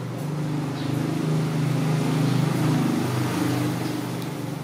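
A passing motor vehicle's engine: a low hum that grows louder through the middle, then fades near the end.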